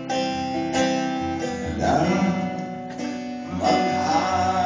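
Live music led by acoustic guitar, with held tones.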